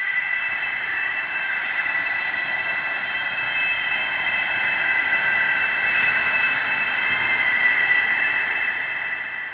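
Sustained electronic drone of several steady high tones over a soft hiss, swelling slightly and then beginning to fade out near the end.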